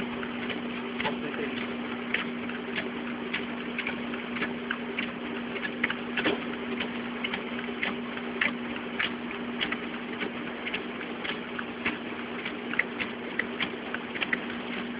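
Fujitsu fi-6800 document scanner running a stack of paper through its automatic feeder: a steady motor-and-roller hum with sharp clicks about two to three times a second as sheet after sheet is pulled through.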